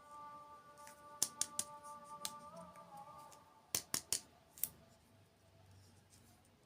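Sharp, crisp clicks in two short clusters, three about a second in and four more a little before the middle, over faint held background-music tones that fade out partway through.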